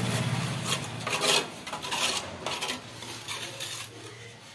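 A handful of irregular gritty scrapes and clinks, hard material on grit, the loudest about a second in, growing quieter toward the end.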